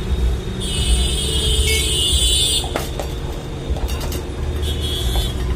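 Road traffic rumbling in the background, with a vehicle horn sounding for about two seconds and a shorter honk near the end.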